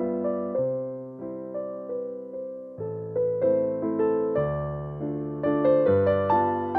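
Background music: a gentle piano tune of struck notes and chords, each note fading after it is played.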